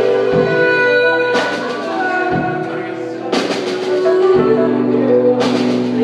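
Live band of drums, bass, guitar and keys playing long held chords, with three cymbal crashes about two seconds apart.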